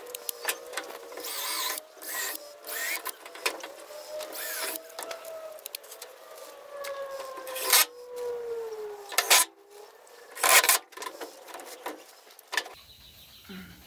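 DeWalt cordless drill driving screws through bamboo strips into the shed's wooden frame, its motor whine rising and falling in pitch as the screws go in. A few sharp knocks come in the second half.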